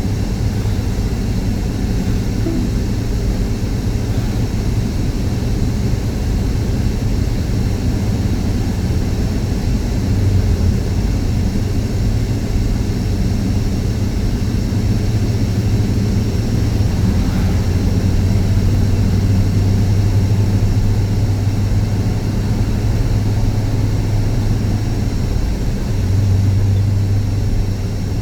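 A car being driven: a steady low engine and road drone that swells slightly a few times.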